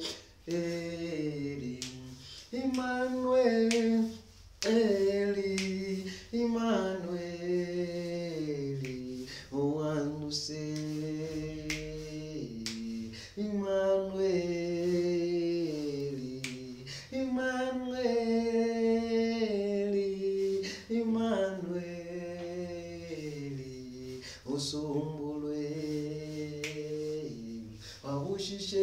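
A man singing a self-composed gospel song alone, with no accompaniment, holding long notes that slide between pitches. Sharp clicks come now and then through the singing.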